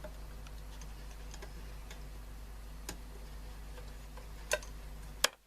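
Scattered sharp clicks and taps of a screwdriver and hands working at a small radio's case while a screw is undone, the loudest two near the end, over a steady low electrical hum.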